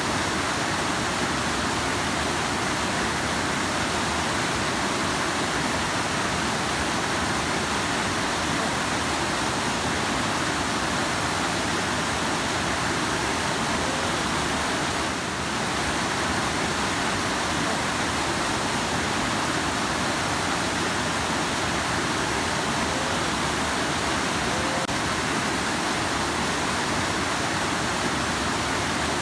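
Rushing river: a steady, unbroken rush of fast-flowing water.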